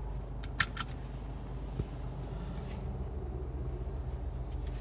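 2012 VW Golf GTI's engine idling with the car at a standstill: a steady low hum, with two sharp clicks about half a second in.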